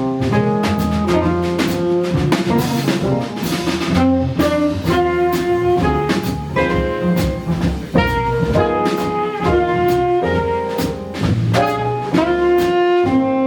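Live jazz combo playing: saxophone with piano, guitar, double bass and drums, cymbals ringing throughout.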